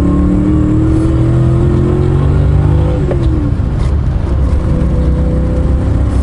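Aston Martin Virage's 5.3-litre four-valve V8 under way, its note rising steadily under acceleration, then dropping sharply about three seconds in and running on at a steady lower pitch.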